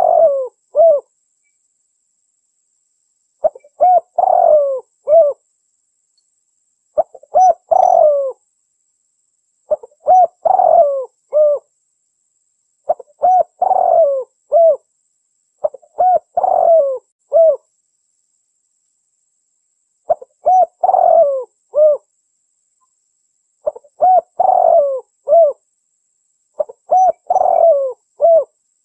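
Spotted dove (tekukur) cooing. Each phrase is a short run of several low coos, and the phrase repeats about every three seconds.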